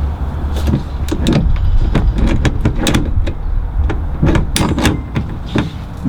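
Aftermarket B&M automatic shifter being worked by hand through its gear positions: a string of irregular clicks and clunks from the lever and its detents, over a steady low rumble.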